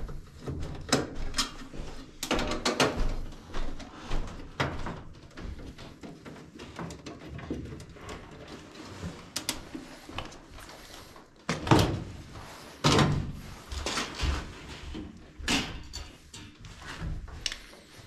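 Furnace's sheet-metal lower access panel being handled and taken off: a run of knocks, clicks and scrapes of metal, the loudest about two-thirds of the way through.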